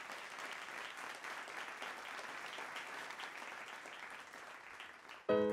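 Audience applauding, a dense patter of many hands clapping. Near the end a piano chord is struck suddenly and rings on.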